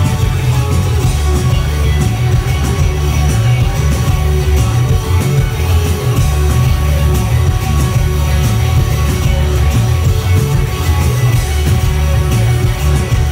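A rock band playing live and loud: electric guitars over bass and drums keeping a steady beat, with no singing. The bass is heavy and booming, as heard from within the crowd.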